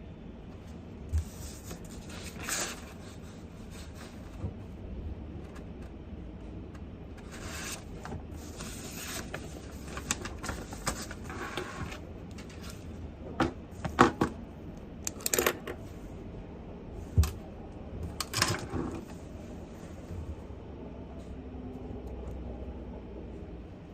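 Small handling sounds at a study desk: stretches of light rustling and scratching, and a handful of sharp clicks and knocks, loudest about two-thirds of the way through, over a steady room hiss.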